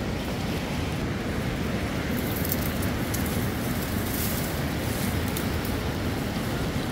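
Steady rushing noise of a river and wind on the microphone, with light crackling rustles of leafy willow branches being pulled from about two seconds in.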